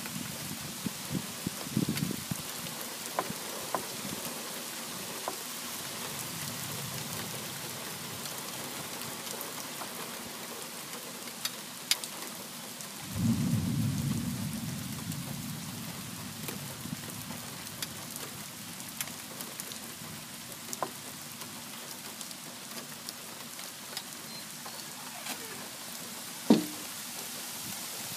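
Steady rain falling during a thunderstorm, with scattered drip ticks. About halfway through, a rumble of thunder starts suddenly and fades away over a few seconds, and near the end there is a single sharp tap.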